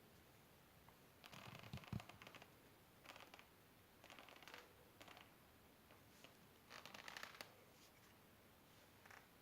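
Faint scraping and rustling in short bursts of about half a second to a second, with one dull knock about two seconds in.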